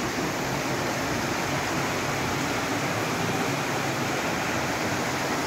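Rushing river water, a steady, even roar of flowing water.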